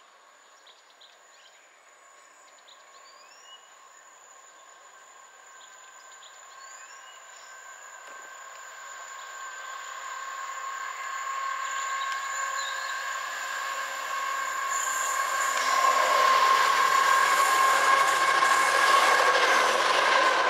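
Colas Rail Class 70 diesel locomotive with its GE PowerHaul V16 engine, approaching at the head of a sleeper train. It grows steadily from faint to loud and is loudest as it draws alongside in the last few seconds, with a steady whine running through it. A bird chirps a couple of times in the quiet before it.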